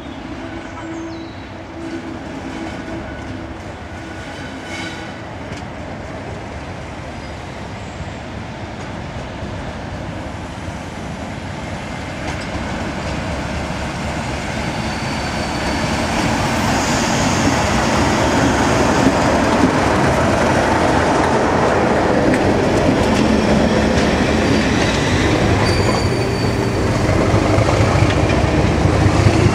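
Class 37 diesel-electric locomotive with an English Electric V12 engine running as it approaches and passes, hauling a rake of test coaches. The sound grows steadily louder over the whole stretch, the engine note giving way to the rumble of the coaches' wheels on the rails as they go by close at hand.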